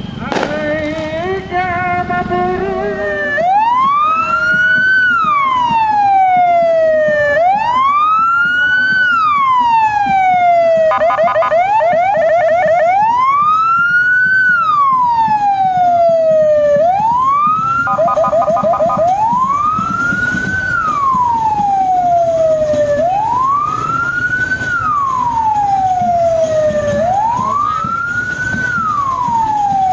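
Police car siren wailing, each cycle a quick rise and a slower fall lasting about four seconds. It is broken twice by a short rapid yelping warble. The siren starts about three seconds in, after a sharp crack.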